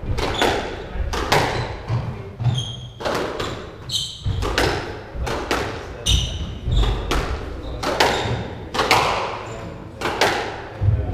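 Squash rally: the ball cracks off rackets and the court walls in a steady run of hits, about one every half second to a second, each ringing on in the court. A few short high squeaks from the players' shoes on the wooden floor come between the hits.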